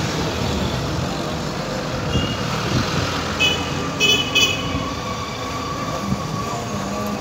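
An electric tram standing at a platform with a steady hum and street noise. About halfway through come a few short, high toots.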